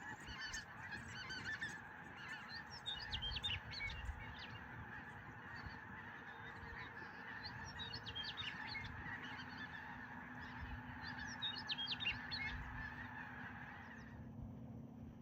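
A large flock of geese honking and calling together, many overlapping calls making a steady chorus with sharper individual calls rising above it. The chorus cuts off suddenly near the end.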